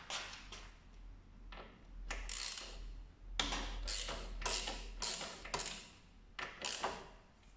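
Socket ratchet wrench worked back and forth on a motorcycle's fork and axle bolts: a series of short clicking strokes, about two a second through the middle.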